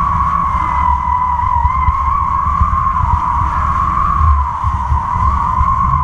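Wind whistling over a kite's flying line and the camera clipped to it: a steady high whistle that wavers slowly in pitch, over heavy wind rumble on the microphone.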